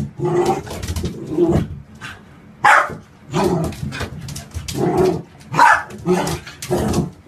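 Young puppy barking and yipping repeatedly, short barks about every half second to a second, echoing in an empty bathtub.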